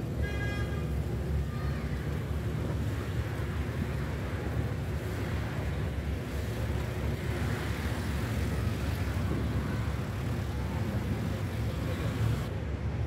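Steady low rumble of city traffic and wind on the microphone, with a brief high-pitched sound near the start.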